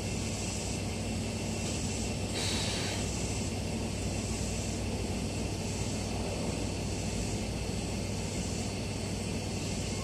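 Stationary 9100-series C-Flyer electric train idling at the platform, its onboard equipment giving a steady hum and hiss, with a short hiss about two and a half seconds in.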